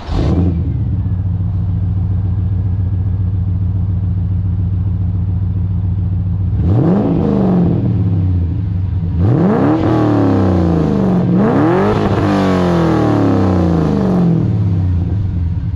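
Holden VX SS Commodore's 5.7-litre LS1 V8, breathing through aftermarket headers and an X-Force exhaust, idling steadily. About halfway through it is revved three times, each rev rising quickly and falling back toward idle.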